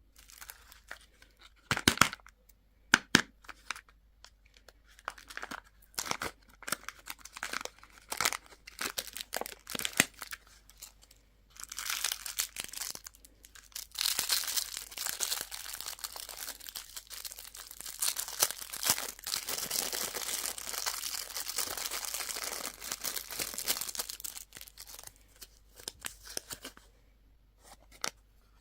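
Candy packaging being torn open and handled: a series of sharp snaps and rustles, then, about twelve seconds in, a long stretch of continuous crinkling and tearing of a wrapper.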